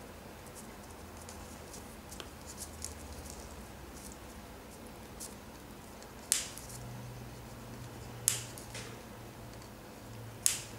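Small hand cutters snipping tiny plastic nut-bolt-washer castings off their sprue: three sharp snips about two seconds apart, the last near the end, with faint handling ticks before the first.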